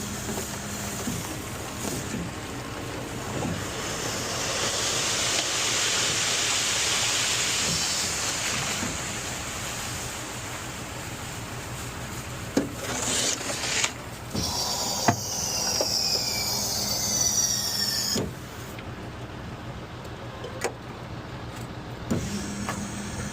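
Concrete mixer truck working at a pour. A rushing hiss swells and fades over several seconds, then a falling whine follows, with a few knocks in between.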